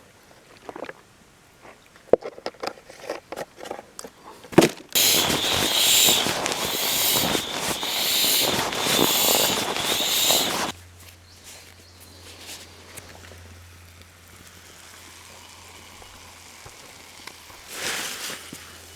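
Scattered clicks and knocks of cooking gear being handled. About five seconds in, a loud crackling sizzle starts suddenly: halloumi frying and spitting in a hot pan. It cuts off abruptly about six seconds later, leaving a quiet background with one short burst near the end.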